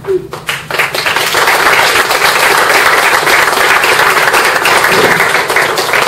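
Audience applauding: a few separate claps, then within about a second a full, steady round of applause from many hands.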